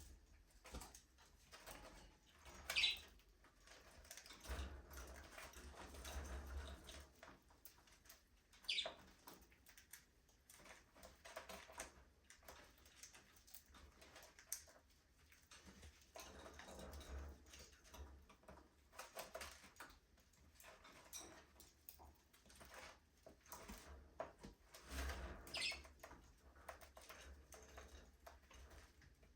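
Faint budgerigar aviary sounds: three short, high chirps spread through a quiet stretch, with light clicks and scratches from the birds moving about.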